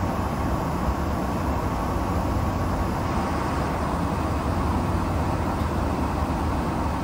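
Airliner cabin noise in flight: a steady, even drone, heaviest in the low end, that does not change.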